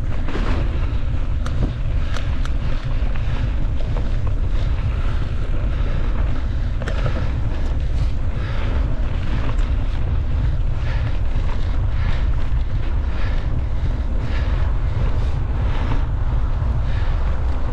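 Wind buffeting the microphone of a camera riding along on a mountain bike: a steady low rumble, with many light clicks and rattles scattered through it.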